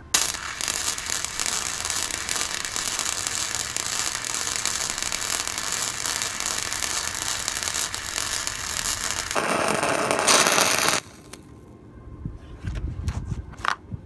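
Harbor Freight Titanium Flux 125 flux-core welder arc laying a bead on steel plate with the wire feed speed turned up high: a steady, dense crackle that gets louder about nine seconds in and cuts off sharply about eleven seconds in.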